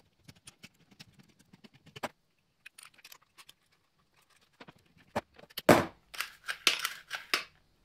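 Ratchet wrench clicking in light, quick ticks as the centre bolt of a snowblower's recoil pull starter is tightened. Near the end a loud knock, then several quick strokes as the starter cord is pulled out and the recoil spring winds it back.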